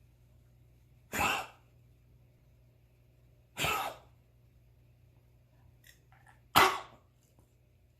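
Three single coughs a few seconds apart: about a second in, near the middle, and the loudest near the end. This is the constant, recurring cough.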